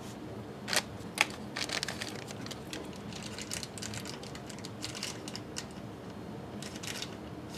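Small motorized display turntable running with a steady faint hum, with scattered light clicks and crinkling sounds.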